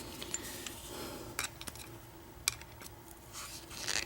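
A few scattered light metal clicks and clinks as the parts of an opened American 700 padlock are handled.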